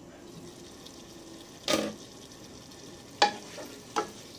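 Chicken pieces frying with a steady sizzle in a non-stick pan. There is a clatter about two seconds in, and near the end a wooden spatula stirs the pieces, knocking twice against the pan.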